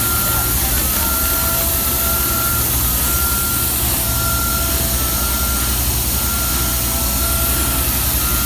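Hydratight portable flange facing machine running, its motor driving the cutting tool around the flange face to cut the serrated finish. The sound is a steady hum and hiss, with a thin high tone that comes and goes about every second.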